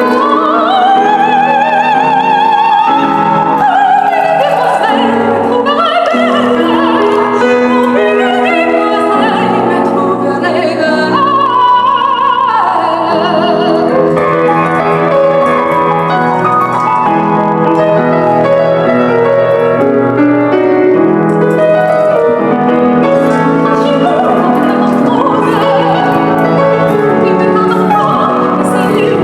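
Female operatic soprano singing an aria with piano accompaniment, holding long notes with wide vibrato and sweeping up and down between them.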